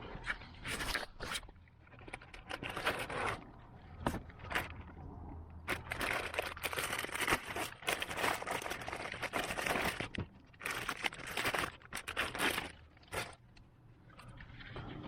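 Plastic scraping, clicking and rustling as a Kia Sorento's cabin air filter is unlocked and slid out of its housing behind the lowered glove box and a new pleated filter is pushed in. The noises come in uneven bursts, with a short lull near the end.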